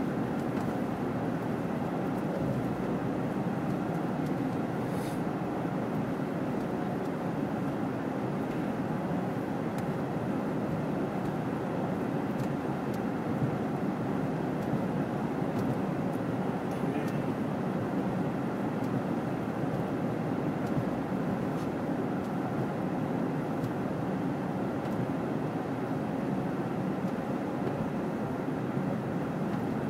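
Steady road noise of a car driving through snow: an even rush of tyres and wind.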